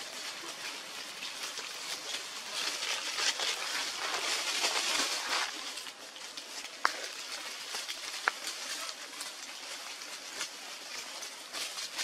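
Outdoor ambient noise: a steady hiss that swells for a few seconds early on and then settles. About two thirds of the way through come two sharp clicks, roughly a second and a half apart.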